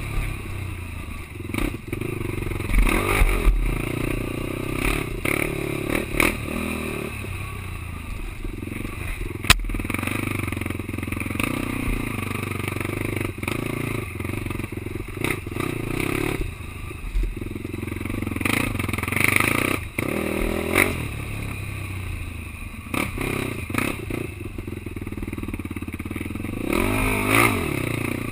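Racing quad's engine running with revs rising and falling, under frequent sharp knocks and rattling clatter.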